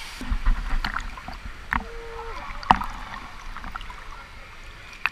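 Lazy-river water lapping and sloshing against a waterproof action camera held at the surface, with irregular small splashes and clicks, the sharpest a little under three seconds in.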